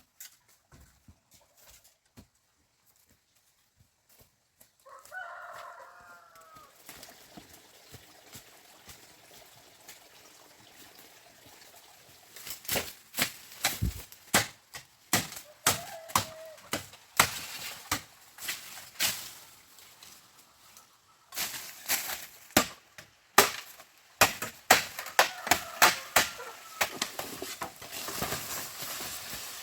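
A short animal call about five seconds in, then a long run of irregular sharp knocks and clatter, loudest in the second half.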